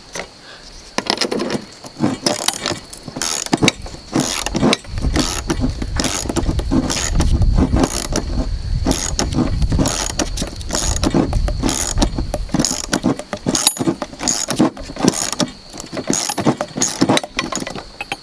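Metal clicking and clinking of hand tools and nuts and bolts as nuts are run onto and snugged up on a chainsaw mill's frame, with many irregular sharp clicks and a low rumble through the middle.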